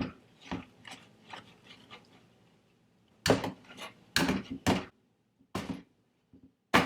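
Banana bread batter being stirred in a mixing bowl: soft repeated strokes of the spoon through the batter, then several louder knocks of the utensil against the bowl in the second half.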